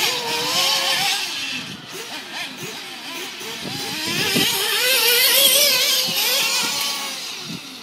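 Radio-controlled model cars running on a track, their small engines whining and wavering up and down in pitch as they accelerate, brake and turn, loudest about five seconds in.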